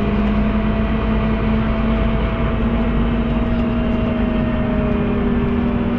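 Scania OmniCity city bus under way, heard from inside the crowded passenger cabin: a steady engine and drivetrain hum with a whine over it. The whine drops slightly in pitch near the end.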